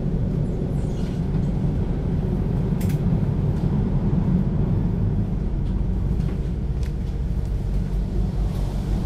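Hess BGT-N2C (Swisstrolley 3) articulated trolleybus running on its auxiliary diesel engine, a steady low rumble with a few faint clicks and rattles, as on a stretch without overhead wires.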